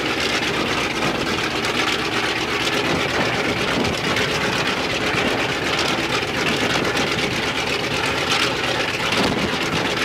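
Ilyushin Il-14T's left engine, a Shvetsov ASh-82T radial, running steadily during a ground run.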